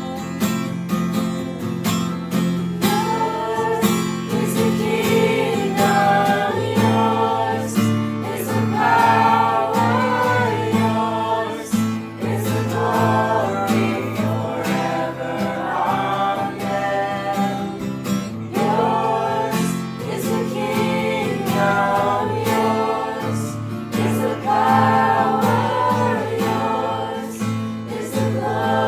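Worship song: a voice singing a melody over strummed acoustic guitar, the singing coming in a few seconds in.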